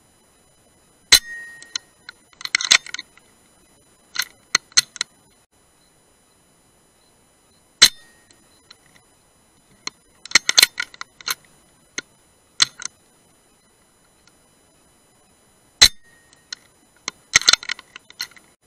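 Three shots from a moderated .177 PCP air rifle (Brocock Sniper HR), each a single sharp crack with a brief ring, about seven and eight seconds apart. A second or two after each shot comes a quick run of metallic clicks and clinks as the action is cycled.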